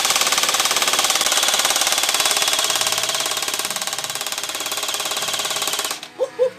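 SPECNA Arms SA-249 MK2 airsoft light machine gun firing one long full-auto burst at a rapid, steady rate, cutting off abruptly about six seconds in.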